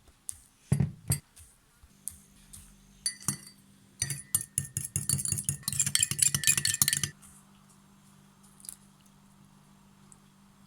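Utensil clinking against glass or ceramic kitchenware: a few separate clinks, then a fast run of clinks for about three seconds. A steady low hum runs underneath.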